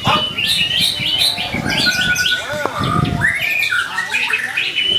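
White-rumped shama (murai batu) in full, continuous song (gacor): a fast run of short chirps and whistled notes, with a held whistle and a few falling notes about halfway through.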